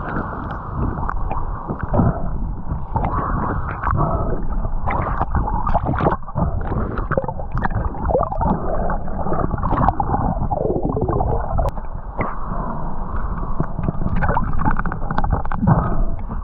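Muffled water sound through a camera's waterproof housing: churning water with irregular bubbling and crackling pops.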